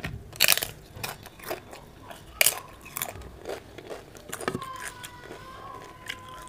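Crisp moong dal papad being bitten and chewed close to the microphone: a run of sharp crunches, most of them in the first three seconds, thinning out after that.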